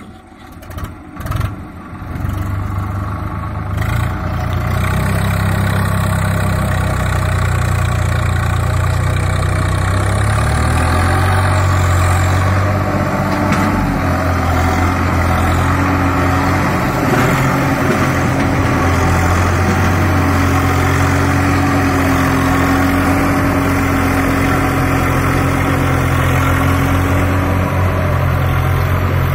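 Swaraj 744 FE tractor's three-cylinder diesel engine working hard, pulling a trolley heaped with soil up out of a pit. After a few knocks in the first two seconds the engine note climbs and then runs steady and loud, shifting in pitch about eleven seconds in.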